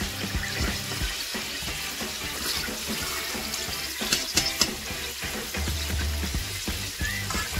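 Beef sizzling in the hot stainless inner pot of an Instant Pot on sauté as the seared pieces are lifted out, with metal tongs clicking against the pot and a steel bowl, several clicks about four seconds in.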